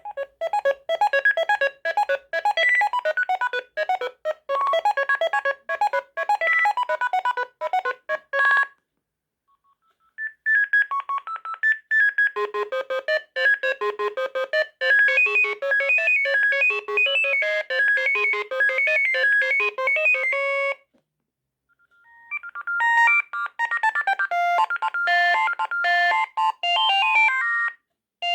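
Sagem MY 3022 mobile phone playing three electronic ringtone melodies in turn, each a quick tune of short beeping notes, with a short silence between one tune and the next.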